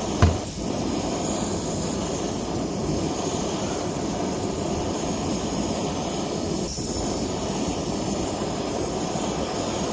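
Gas cooker burner running under a kettle, a steady, even hiss. There is one short knock about a quarter second in.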